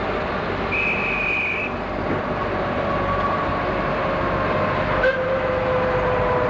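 Miniature railway train running, a steady rumble, with one short high toot about a second in.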